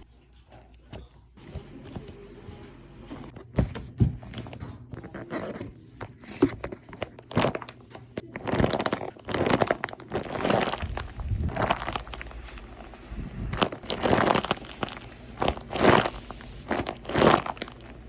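Paper crinkling and rustling in irregular handfuls as a paper squishy is handled, getting louder and busier about halfway through.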